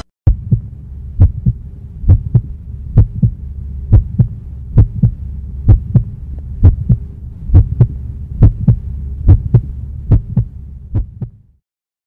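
Heartbeat sound effect: a steady double thump, lub-dub, a little under once a second, over a low hum. It stops shortly before the end.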